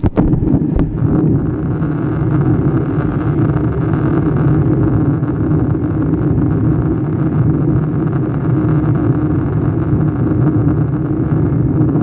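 Steady in-flight cabin roar of a jet airliner: engine and airflow noise heard through the fuselage, with a few light knocks in the first second.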